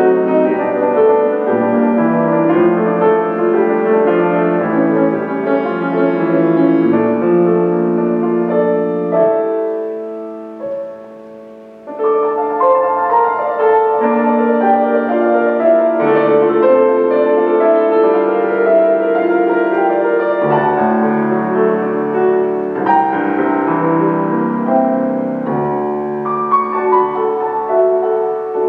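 Solo grand piano playing a piece in sustained chords and melody. The music dies away to a soft held sound about ten seconds in and comes back in full about two seconds later.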